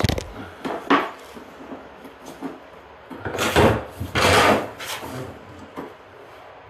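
Handling noise: a couple of sharp knocks, then two short rasping scrapes about three and a half and four and a half seconds in, with a few light ticks after.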